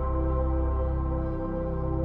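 Ambient new-age background music: soft sustained synthesizer pads over a low drone.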